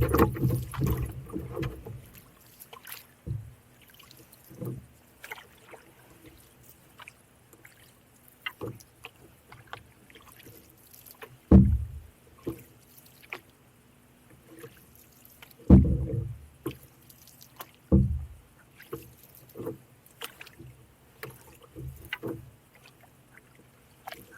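Canoe paddling: paddle strokes and drips in the water, with irregular low thuds against the canoe, the loudest about halfway and two-thirds of the way through, among small clicks.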